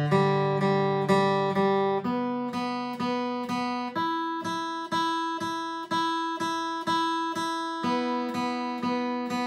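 Acoustic guitar played with a pick, one string at a time, in even alternating down-up strokes, about two notes a second. The pitch steps up from string to string to the high string, stays there for twice as long, then steps back down near the end.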